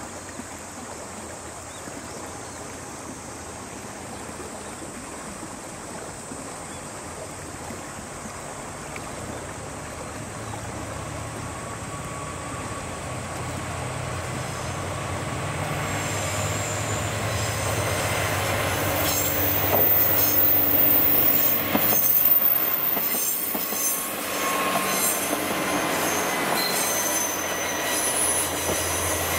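A three-car JNR KiHa 40-series diesel railcar train (KiHa 47 and KiHa 40) approaches and passes close by, its diesel engines humming low and growing steadily louder over about twenty seconds. In the second half, high-pitched wheel squeal and rail clatter join in as the cars go past.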